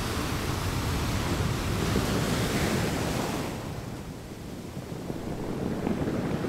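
Surf washing onto a sandy beach: a rush of noise that swells for about three seconds, falls away, then builds again with the next wave.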